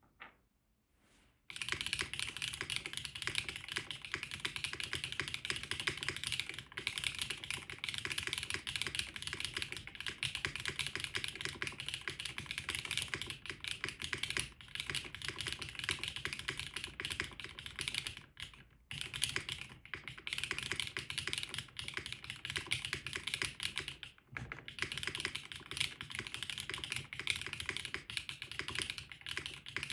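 Continuous fast typing on a custom mechanical keyboard: a Krush65 with a sandblasted polycarbonate case, O-ring-mounted aluminium plate, Keygeek Y1X switches and GMK Fuji ABS keycaps. The typing starts about a second and a half in and pauses briefly twice, at about 18 and 24 seconds.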